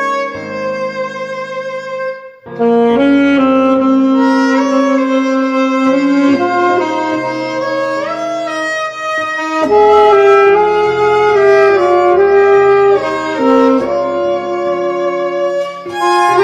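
Instrumental background music: a saxophone plays a melody of long held notes over accompaniment, with a short break about two seconds in.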